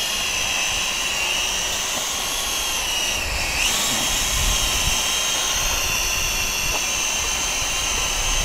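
XK X300 quadcopter hovering, its motors and propellers giving a steady high whine that dips briefly in pitch and comes back a few seconds in.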